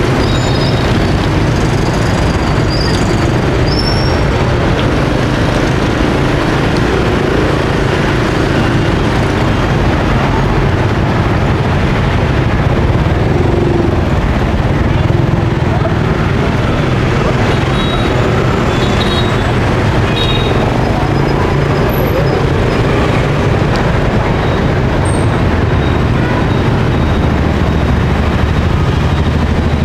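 Hot oil sizzling and bubbling steadily as shrimp-topped bánh mì pieces deep-fry in a steel pot, under a steady low rumble of street traffic.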